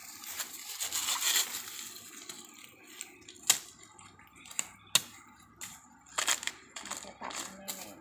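Fresh bamboo shoots being peeled with a knife: the dry husks rustle and crackle, with several sharp knife strikes, the loudest about three and a half and five seconds in.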